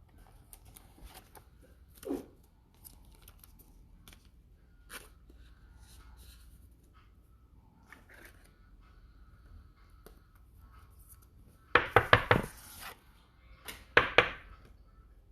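Soft rustling and clicks of trading cards being handled, then near the end two short bursts of a foil sports-card pack wrapper being torn open.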